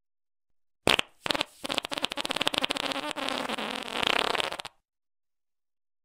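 Fart sound effect: a short blast about a second in, then a long, rapidly sputtering fart lasting about three seconds that cuts off abruptly.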